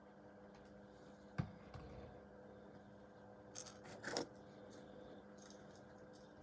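A single sharp knock about a second and a half in, then brief rustling and scraping around four seconds in, over a faint steady hum.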